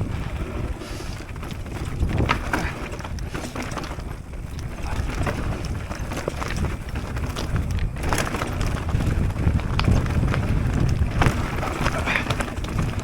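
Mountain bike descending a dirt trail: wind buffeting the microphone and tyres rumbling over the ground, with frequent clicks and knocks as the bike rattles over bumps.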